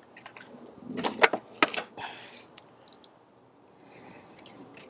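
Sharp metallic clinks and knocks from the grate and tools of a charcoal kettle grill being handled, a cluster about a second in and a few more near the end, with a short scrape around two seconds in.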